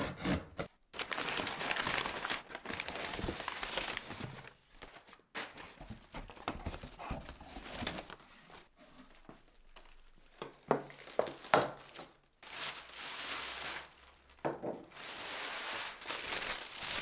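Packing paper and plastic wrapping crinkling and rustling in irregular handled bursts as items are unpacked from a cardboard box, with some tearing and a few sharper knocks near the middle.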